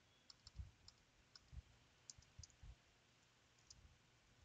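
Faint computer keyboard typing: irregular, quick keystroke clicks, some with a soft low thump.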